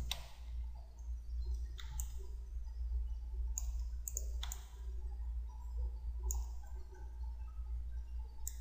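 Computer mouse clicking: a handful of single sharp clicks, one to two seconds apart, over a steady low electrical hum.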